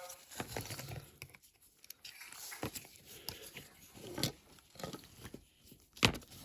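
Small plastic clicks, scrapes and crackles as the plastic interior parts of a diecast model van are prised and handled, with one sharp click about six seconds in.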